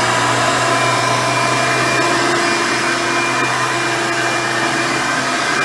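Hoover Elite 350 upright vacuum cleaner, fitted with a 7-amp motor and its 7-blade fan, running steadily at full speed. A steady whine sits over the rush of air.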